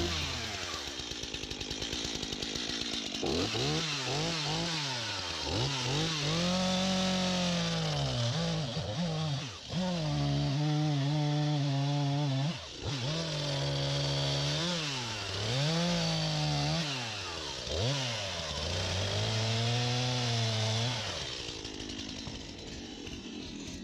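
STIHL MS251C two-stroke chainsaw revved up and down over and over, its pitch climbing, holding high for a second or two, then dropping back. The revving starts about three seconds in and eases off near the end.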